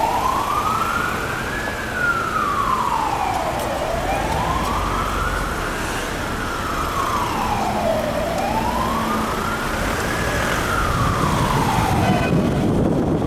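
Emergency vehicle siren wailing, its pitch slowly rising and falling in about three long cycles before it stops near the end, over the rumble of passing cars on a wet road.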